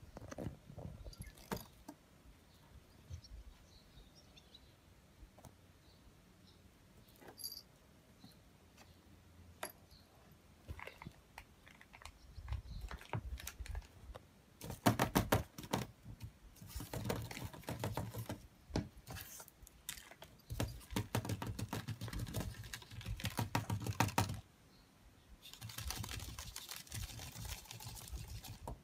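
A kitten rummaging among pens in a pen holder and on a plastic basket: quick, irregular clicking and rattling of plastic, sparse at first and coming in dense runs through the second half.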